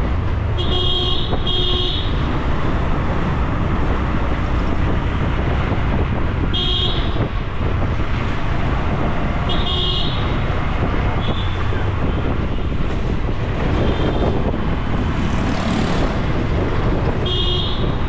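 Auto-rickshaw running through city traffic, its engine and road noise steady throughout. Short horn beeps come several times: two close together near the start, then others spaced through the rest.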